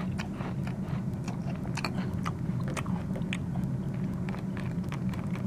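Chewing sound effect: a crunchy snack like a Cheeto being bitten and chewed, with many short, irregular crunches over a steady low hum.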